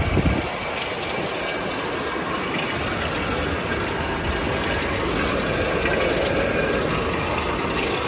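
Continuous rotary drum carbonization furnace in operation: steady, even machine noise from the turning drum, its drive and the charcoal discharge.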